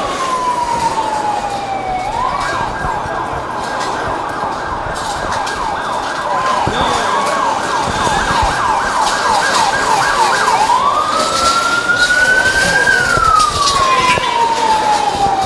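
Emergency vehicle siren. A slow wail switches to a rapid yelp about two seconds in, then goes back to a slow rising and falling wail about ten seconds in, over a steady background din.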